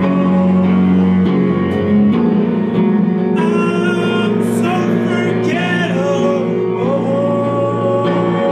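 Live acoustic band: a male vocalist singing over acoustic guitar chords, his words not clearly made out.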